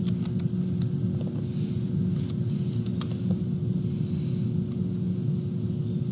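Steady low background hum with a fixed tone in it, over which a few light keyboard taps and clicks sound in the first three seconds as a stream name is typed.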